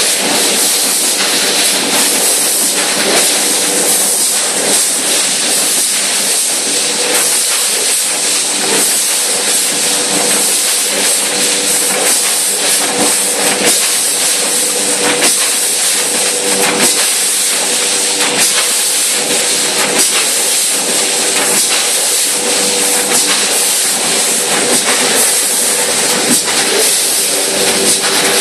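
Rotary premade-pouch bagging machine running: a loud, steady hiss with a constant hum underneath and frequent irregular clicks from its air-driven bag grippers and indexing turntable.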